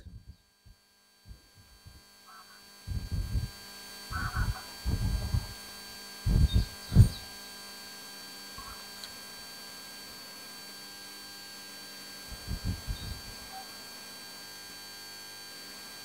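A steady electrical hum with several low rumbles on the microphone, a cluster about three to seven seconds in and a weaker one near the end.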